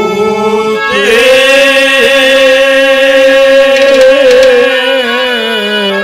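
Male folk singer singing a Haryanvi ragni through a PA. After a short opening phrase he holds one long high note, wavering slightly, from about a second in to near the end, over a steady lower accompanying tone.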